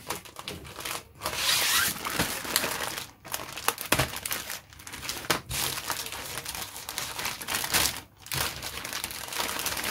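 Clear plastic bag crinkling as hands open it and pull out a grey plastic model-kit sprue. The rustling stops briefly three times.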